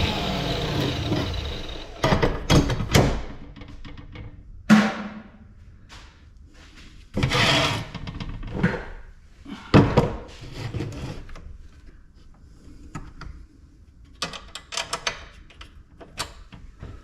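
Irregular metal clanks, knocks and rattles as parts of a mini ice maker are pulled apart and dropped, with a short scraping burst about seven seconds in. A power tool's running noise dies away in the first couple of seconds.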